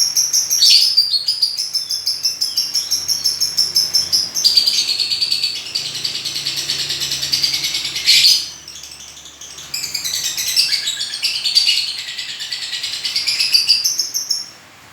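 A pet lovebird chattering in long runs of rapid, high chirps, with a brief lull a little past halfway.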